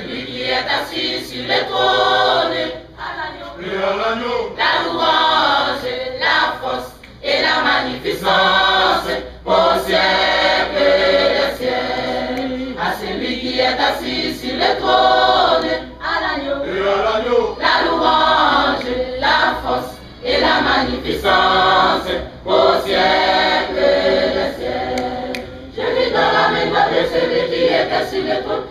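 Large church choir, mostly women's voices, singing a hymn in phrases with short breaks between them.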